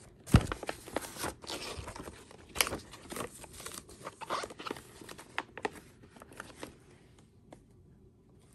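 Paper sheets being slid into a plastic expanding file folder: rustling, crinkling and light taps as the pages and folder pockets are handled, with one sharp knock about half a second in. The handling thins out over the last second or so.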